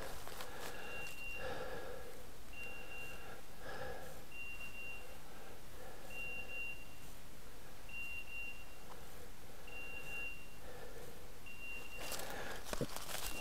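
Hunting dog's electronic beeper collar giving a short, high, steady beep about every two seconds, with softer lower tones sounding at times. Near the end, footsteps crunch through dry leaves.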